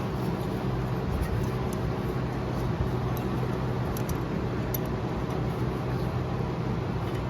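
A steady low background hum, with a few faint light clicks of small metal parking-brake hardware being handled and refitted.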